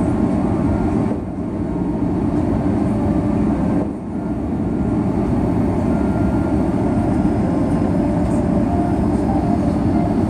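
Airbus A330 cabin noise on the approach to landing: a steady low roar of engines and airflow, dipping briefly about a second in and again about four seconds in.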